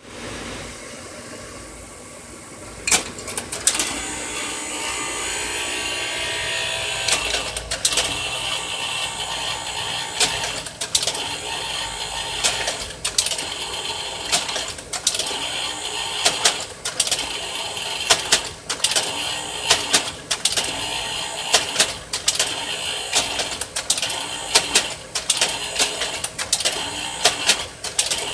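Kodak 4600 Carousel slide projector running: a steady fan-like whir with a low electrical buzz, which the owner notes although the projector works. It kicks in with a click about three seconds in, followed by many sharp mechanical clicks that come more often near the end.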